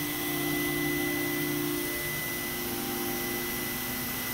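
Steady noise of engine-room machinery: an even roar with a thin, steady high whine.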